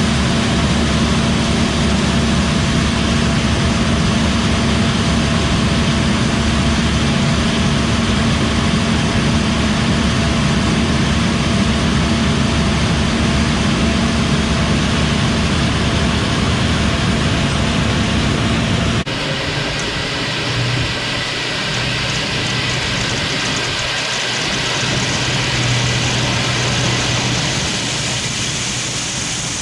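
John Deere 8R 410 tractor's diesel engine running steadily under load, a loud, even drone. About two-thirds of the way through it cuts off suddenly to a quieter, hissier steady running noise.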